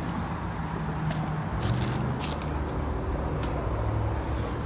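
A steady low mechanical hum, with a few short crackles and scrapes over it.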